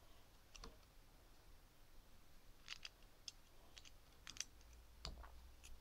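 Faint, irregular clicks of plastic LEGO bricks handled and pressed together, the sharpest one about five seconds in.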